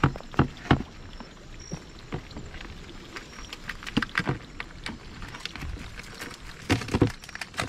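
Live blue crabs and a mesh net knocking and clicking against a clear plastic tub as the crabs are shaken in, in irregular sharp knocks with louder clusters near the start, about four seconds in and near the end.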